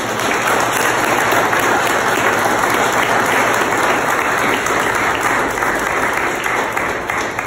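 A small group of people applauding, starting all at once and easing off a little near the end.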